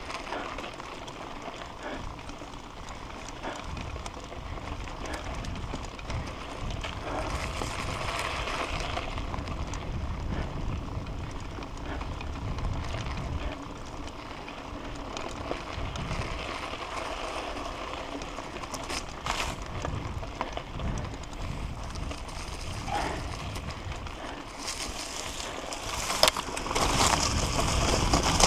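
Mountain bike rolling over a dry dirt trail: a steady rush of tyre noise with a few sharp knocks from the bike. It gets louder over the last few seconds as the trail turns rougher and the bike rolls onto leaf litter.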